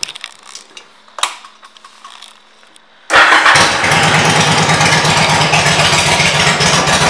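A few faint clicks, then about three seconds in the 2006 Yamaha V Star 1100 Custom's air-cooled V-twin engine, fitted with Cobra pipes, starts, catching at once, and settles into a steady idle with an even exhaust pulse.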